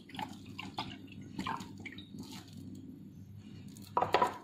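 UHT milk dripping and trickling from a small carton into a glass measuring jug in a few short, faint splashes. A brief louder sound, likely handling, comes near the end.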